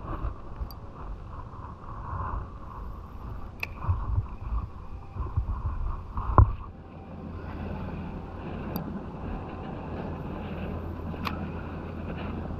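Wind rumbling on the microphone, with a sharp click about six seconds in. After it comes a faint steady whir of a spinning reel being reeled in.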